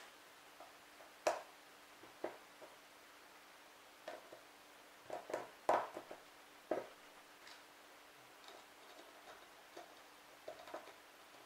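Clicks and knocks of hard plastic parts being handled and pushed together as a nozzle assembly is fitted onto a small submersible fountain pump, a scattered string of short sharp clicks, the loudest bunched in the middle.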